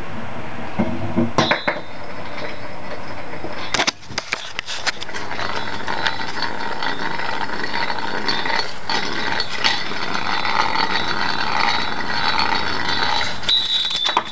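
Veeder-Root variator cone gear, its shaft ground to a point, spinning like a top on a hard floor after a blast of compressed air. A clatter of knocks comes about four seconds in, then a steady metallic rattling whir, with a few clinks near the end.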